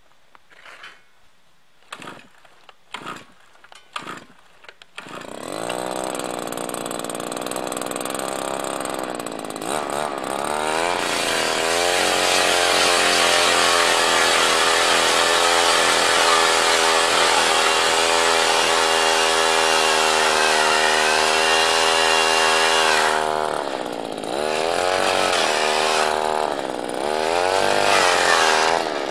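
Gas-powered ice auger: a few short pull-cord tugs, then the engine catches about five seconds in, revs up and runs at high speed as the auger bores into the ice. Near the end it eases off and revs up again twice.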